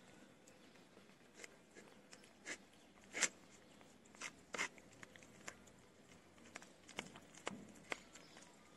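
A mother cat and her kitten eating wet cat food from a plate: faint, irregular wet clicks and smacks of chewing, loudest about three seconds in.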